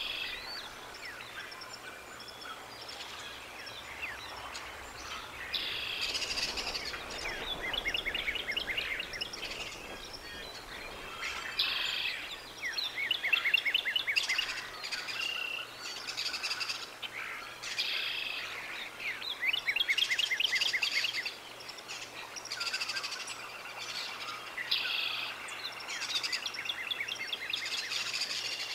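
Bald eagle alarm calling: repeated bouts of rapid, high chittering notes that come every few seconds, loudest in the middle stretch.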